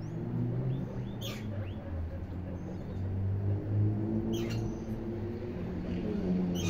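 Guinea pigs squeaking: short high squeaks and chirps a few times, over a steady low hum.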